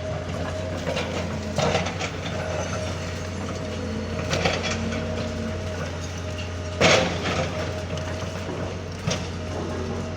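Backhoe engine running steadily under load while it tears into a building, with crashes of breaking and falling debris four times, the loudest about seven seconds in.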